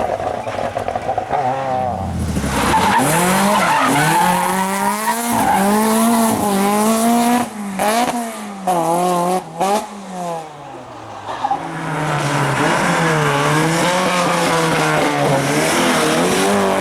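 Rally car engine revving hard, its pitch climbing and falling again and again as it changes gear. Around the middle there is a stretch of throttle lifts and quick blips, with the sound cutting in and out, before it pulls hard again.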